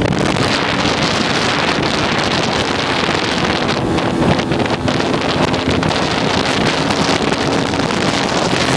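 Wind buffeting the microphone of a motorcycle at cruising speed, with the motorcycle's engine running steadily underneath.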